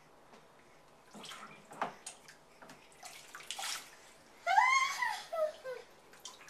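Water poured from a plastic cup splashing into a baby bathtub, then, about halfway through, a short, loud, high-pitched squeal that rises and falls.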